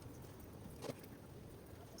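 A single faint, short clink of small metal engine parts or a tool being handled during bench assembly, about a second in, over a low steady background hum.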